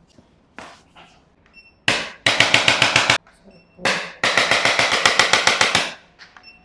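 Rapid hand percussion on a patient's body: two runs of quick, evenly spaced slaps, about eight a second, the first about a second long and starting about two seconds in, the second about two seconds long.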